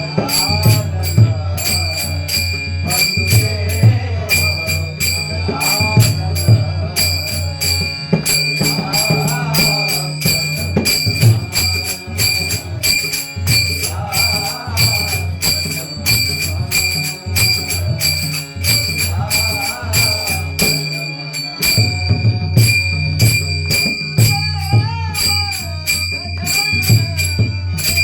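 Marathi Varkari bhajan: a singing voice in phrases over a steady low drone, with small hand cymbals (tal) jingling in a fast, even rhythm. The drone drops out briefly about three-quarters of the way through.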